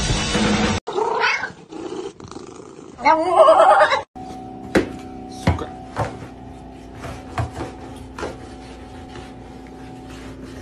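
A cat yowling: a short rising call about a second in, then a longer, louder wavering yowl a few seconds in. After that a steady hum with several sharp knocks as a long pole is poked under a refrigerator.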